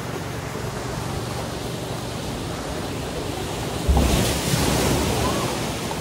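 Steady rush of sea surf and wind, with wind buffeting the microphone; a louder buffet with a deep rumble hits about four seconds in.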